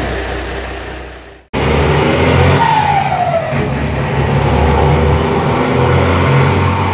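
Mercedes-Benz 1721 bus's turbo-diesel engine running, heard from inside the bus, with a modified turbocharger whistle that glides down in pitch about three seconds in. Before that, an engine sound fades and cuts off abruptly about a second and a half in.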